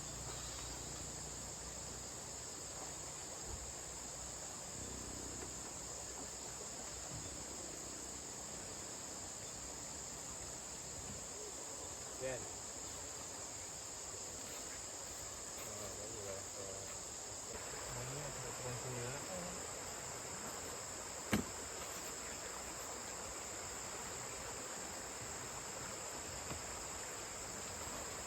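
Steady, high-pitched chorus of night insects, with a single sharp click about three quarters of the way through.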